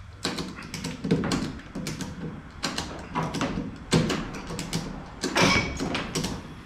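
Irregular metal clanks, knocks and creaks as the stripped cab of a 1980 Chevy C10 pickup is worked loose from its frame while hanging from a shop crane, with a short, higher squeak about five seconds in.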